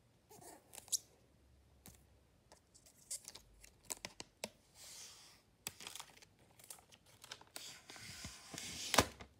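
Hands unpacking an iPad box: scattered light clicks and taps of cardboard and plastic, with rustling of packaging around halfway and a longer rustling, tearing stretch near the end, then one sharp knock just before the end.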